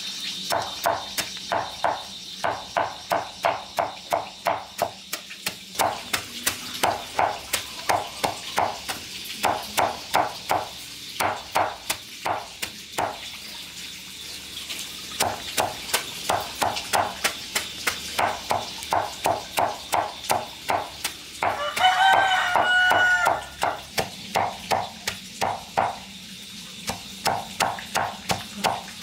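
A knife chopping on a wooden cutting board in quick, even runs of about three strokes a second, with short pauses between runs. A chicken calls once, about two-thirds of the way through.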